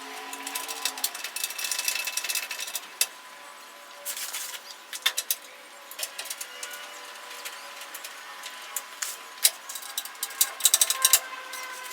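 Hand tools working bumper bolts on metal: runs of rapid clicking, as from a ratchet wrench, in three spells (about a second in, around four to five seconds, and near the end), with scattered single clinks between.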